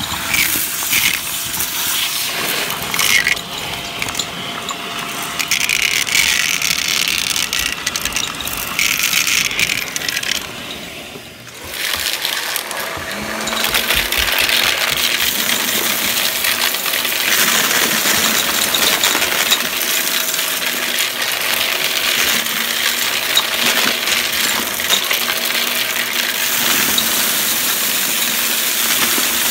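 Shark vacuum cleaner running and sucking up coins, beads and grit, which rattle and clatter through the nozzle and hose in a dense crunching stream. The noise dips briefly about eleven seconds in, then a steady motor hum carries on under continuous rattling as the floor head runs over the pile.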